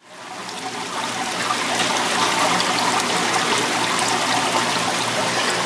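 Water running and splashing steadily into live-fish tanks, fading in over the first second.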